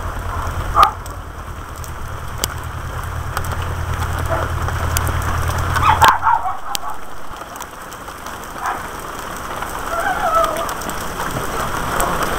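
Rain falling and pattering, with sharp drops tapping now and then close to the microphone. A low steady hum under it cuts off about six seconds in, and faint voices come through briefly.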